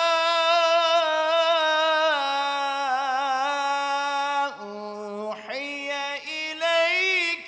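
A man's voice reciting the Qur'an in the melodic tajwid style. He holds one long ornamented note for about four and a half seconds, dips lower and pauses briefly, then sings another trilling phrase.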